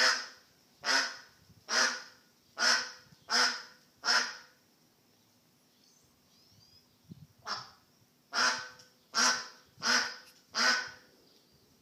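A lost duck quacking loudly over and over, about one quack a second: six calls, a pause of about three seconds, then five more.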